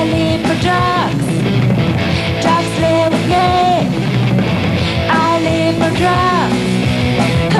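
A rock band playing live: a woman sings long held notes that slide down at their ends, over drums, cymbals and electric guitar.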